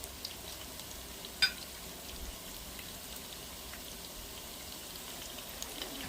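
Lumpia frying in hot oil: a steady sizzle with scattered small crackles and one sharp pop about a second and a half in.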